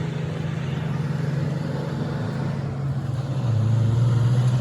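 An engine or motor running steadily with a low hum. It drops in pitch and gets slightly louder about three seconds in.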